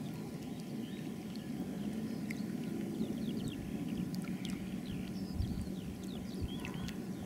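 Outdoor ambience: a steady low rumble with a faint hum, while small birds chirp again and again from the trees. A couple of low thumps come about five seconds in.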